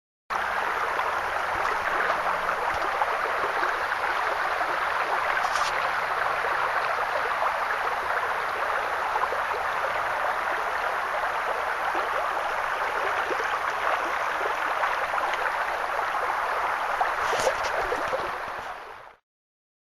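Steady rush of a small river's water flowing over rocks, fading out near the end.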